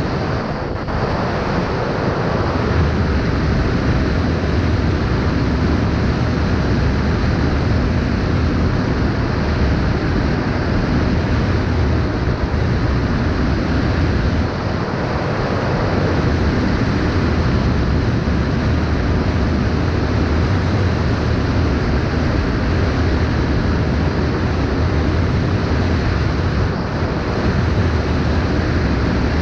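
Loud, steady wind noise buffeting the microphone, with a faint steady motor hum underneath.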